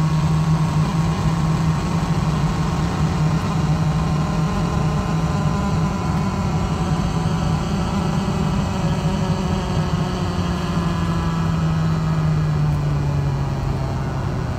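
A faulty aircraft cabin loudspeaker giving a loud, steady low buzz over the cabin's background noise. The buzz dips slightly in pitch near the end.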